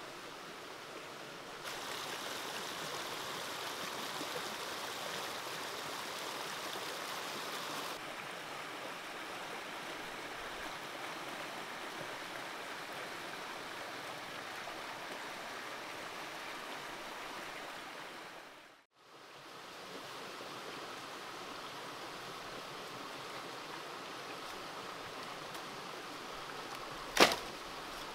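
Steady rushing of flowing stream water, dropping briefly to silence about two-thirds through. A single sharp knock near the end is the loudest sound.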